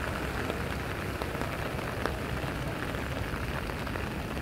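Steady rain falling, with scattered sharp drop ticks.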